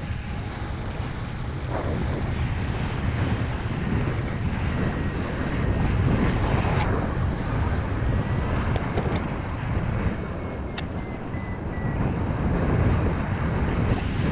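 Airflow buffeting the microphone of a camera carried by a paraglider in flight: a steady, deep rushing of wind that swells and eases, louder about halfway through and again near the end.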